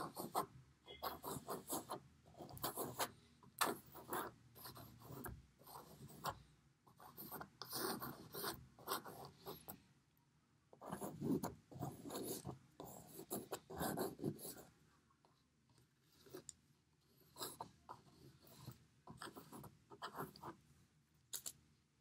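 Plastic painter's knife scraping and spreading thick white gesso across a canvas, in a run of short, irregular strokes with brief pauses. The strokes grow sparser and quieter in the last third.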